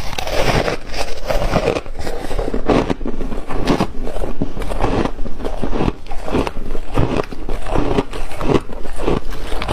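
Close-miked crunching of ice being bitten and chewed, a rapid run of crisp crunches at about two to three a second.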